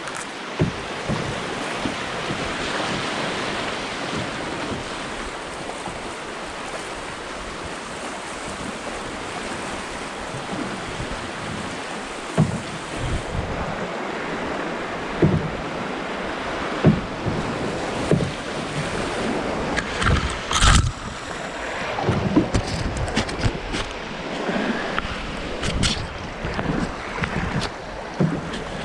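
Rushing whitewater of a brook's class II rapids flowing around an open canoe, with knocks and thumps now and then from about halfway through; the loudest comes about 21 seconds in.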